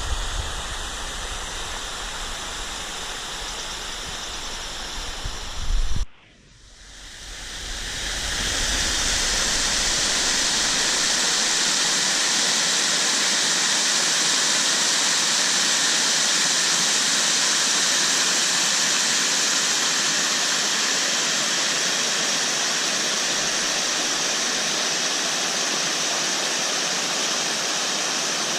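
Waterfall rushing steadily. The sound cuts out suddenly about six seconds in, fades back up over the next two seconds, and then runs on louder and hissier.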